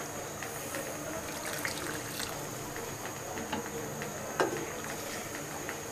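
A pot of beef curry simmering with hot water just added, making a steady bubbling hiss dotted with small pops. There is one sharp click about four and a half seconds in.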